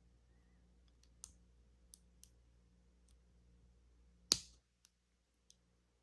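Faint scattered clicks of a steel lock pick working the wafers of a wafer lockout-tagout padlock held under tension, with one sharper, louder click a little past four seconds in.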